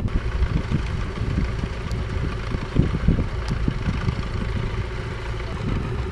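Tractor-based backhoe loader's engine running steadily at idle.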